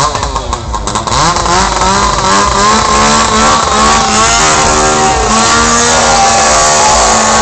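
Several two-stroke chainsaw engines revved at the same time, their pitches sweeping up and down in the first couple of seconds, then held at full throttle at a fairly steady high pitch.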